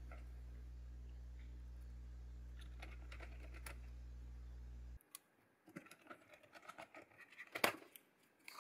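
Faint clicks and scratches of a screwdriver and small Torx screws being worked into a plastic hair-dryer handle, with one sharper click near the end. Under it, a steady low hum cuts off abruptly about halfway through.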